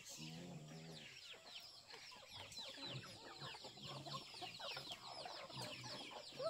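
A flock of chickens clucking, with a constant chatter of quick, high, falling peeps over low short clucks.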